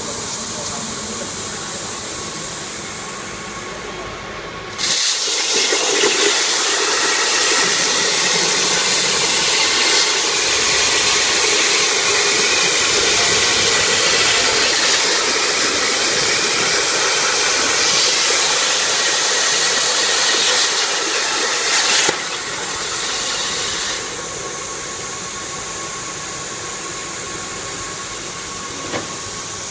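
CNC plasma cutter torch: the arc fires sharply about five seconds in and cuts with a loud, steady hiss for about seventeen seconds, then cuts off. A quieter steady air hiss runs before and after the cut, dropping again a couple of seconds after the arc stops.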